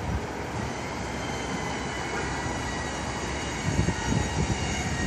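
R32 subway train pulling away along the elevated steel tracks: a steady rumble of wheels on rail with thin, high wheel squeal over it.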